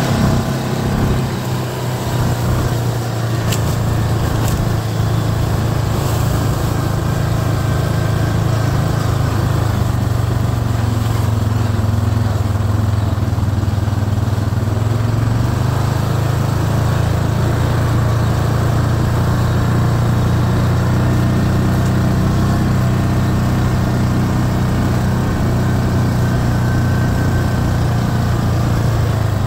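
ATV engine running steadily at trail-riding speed, a constant low drone that holds its pitch, with a few light clicks a few seconds in.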